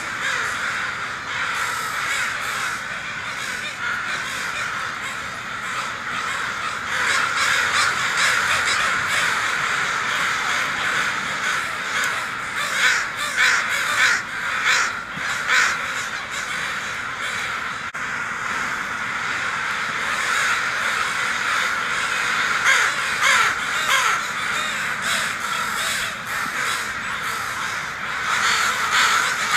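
A flock of crows cawing, many harsh calls overlapping into a continuous din, with bursts of louder caws around the middle and again near the end.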